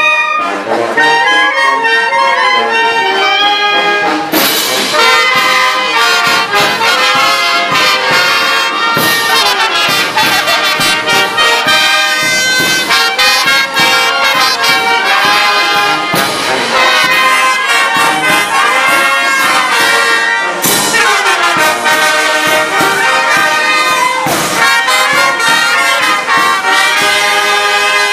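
A live brass band plays a lively dance tune with trumpets, trombones and a steady beat.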